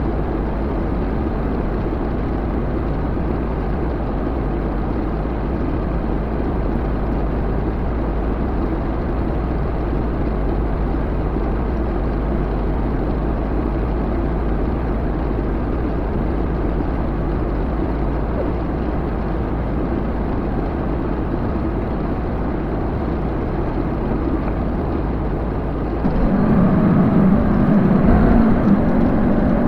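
A vehicle engine running steadily with a low rumble. About 26 s in it gets louder and revs up.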